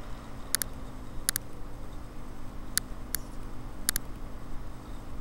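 Computer mouse button clicks: about five short sharp clicks, most as quick double clicks, over a low steady hum.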